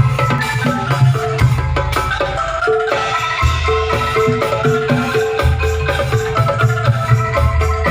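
Angklung music: a busy melody of struck, ringing bamboo or mallet tones with a repeating mid-pitched note over heavy bass in long pulses, played loud for a sound check.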